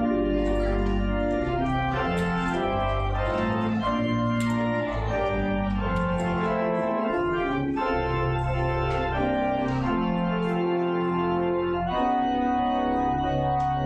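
Church organ playing sustained chords over a slowly moving bass line, the notes held steady rather than dying away.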